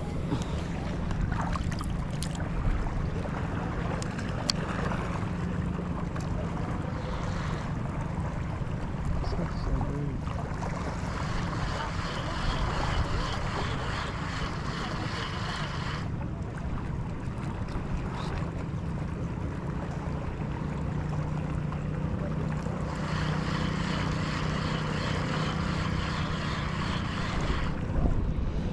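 A small fishing boat's diesel engine running steadily under wind and water noise, with the wind and water noise swelling twice for several seconds.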